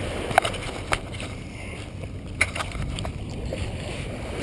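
Wind buffeting the microphone over the wash of small surf, with a few sharp clicks and ticks, the loudest about half a second in and about two and a half seconds in.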